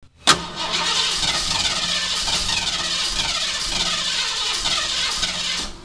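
Late-1960s Ford Mustang's engine starting abruptly with a sharp bang and running steadily for about five seconds, then cutting off suddenly.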